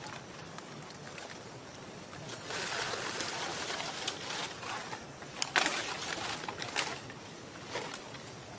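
Outdoor background noise: a steady rustling hiss that swells for a couple of seconds, with a few sharp clicks or snaps a little past the middle.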